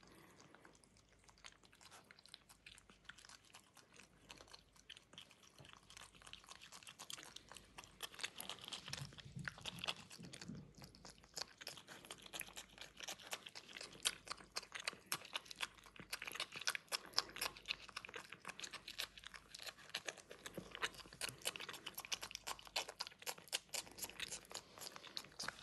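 Marmot chewing and biting into a slice of fruit: a fast run of faint crunching clicks. It gets louder after the first several seconds.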